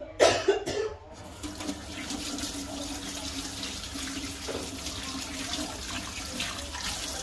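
Water running steadily from a kitchen tap into a sink, settling in about a second in after a few sharp knocks.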